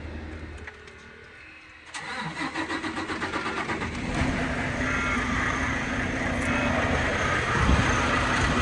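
An engine cranking with a rapid pulsing for about two seconds, then catching and running steadily.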